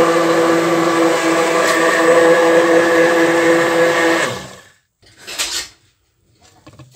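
Hand-held immersion blender running steadily in a steel pot of thin semolina batter, whipping it to a froth. It winds down and stops about four seconds in, and a short noise follows about a second later.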